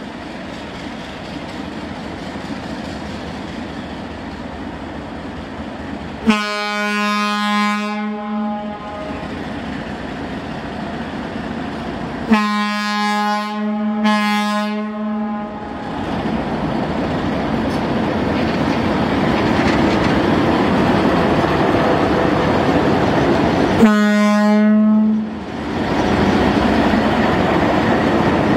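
Alco diesel locomotive 2148 (RENFE 321 series) running as it pulls along the platform, its engine growing louder as it comes close and passes. Its horn sounds four times on one steady note: a blast of about two seconds a little before the middle, two blasts in quick succession near the middle, and a last shorter blast near the end.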